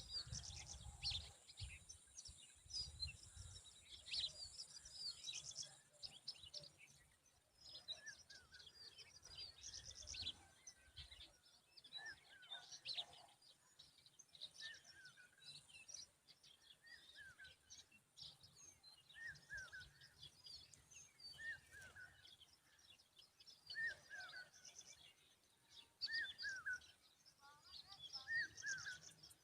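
Common babbler calling to protect its young: a stream of short, high chirps, joined about halfway through by a lower, repeated note roughly once a second. A faint low rumble underlies the first third.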